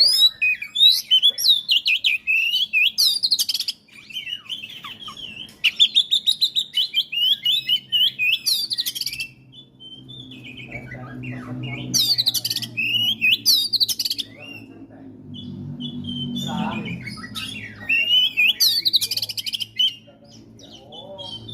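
Oriental magpie-robin (kacer) singing: loud bursts of rapid, varied warbles and trills, each a second or few long with short pauses between.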